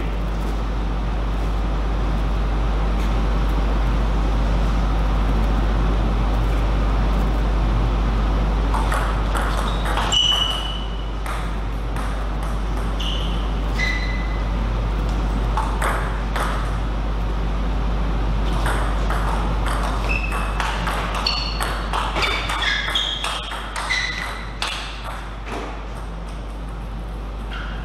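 Table tennis ball clicking off the table and rackets in rallies, sharp pinging hits in clusters from about nine seconds in until near the end, over a steady low hum.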